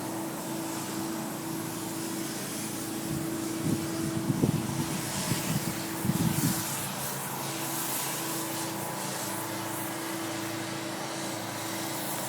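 Steady hum of a running engine or motor with a constant pitch, with a few low bumps and rumbles from about three to six and a half seconds in.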